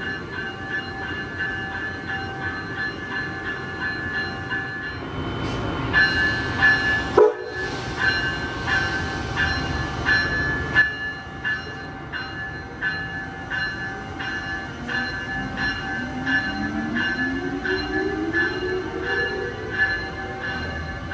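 Amtrak Siemens ACS-64 electric locomotive running at the platform with a steady, regularly pulsing tone, then starting off with a rising whine late on. A brief loud burst about seven seconds in.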